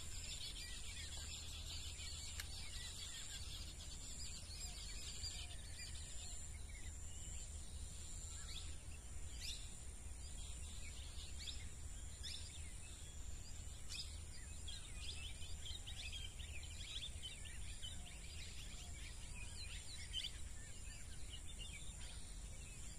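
Outdoor ambience of many short bird chirps and calls throughout, over a steady high whine like insects and a low rumble of background noise.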